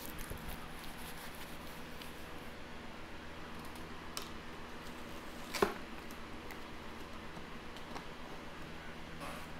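Steady low electrical hum with a few faint handling clicks, and one sharper click a little past halfway.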